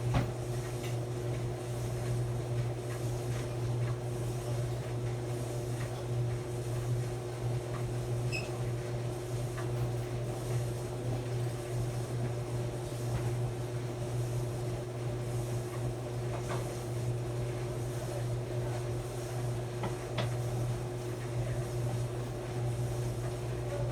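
Maytag clothes dryer running: a steady low motor-and-drum hum with a constant tone above it, and a few faint ticks.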